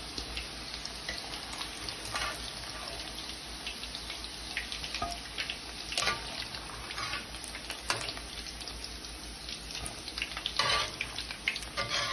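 Oil sizzling and crackling steadily around breaded chicken nuggets frying in a pan. A few light clicks of a metal slotted spoon against the pan as the nuggets are turned and lifted out.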